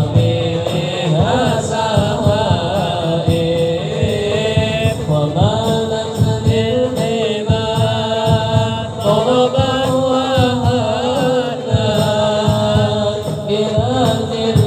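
Islamic sholawat sung by a male lead voice through a microphone and loudspeaker, in long ornamented melismatic lines, over hand-struck frame drums keeping a steady beat.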